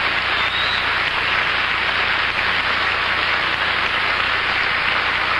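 Studio audience applauding, a dense, steady clapping that greets a famous guest.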